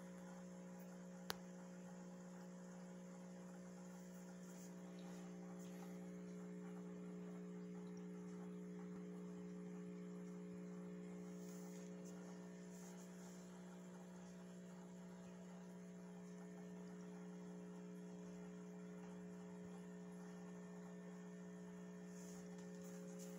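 Faint, steady electrical hum from aquarium equipment: a low note with several fainter higher tones above it, unchanging throughout. A single sharp click about a second in.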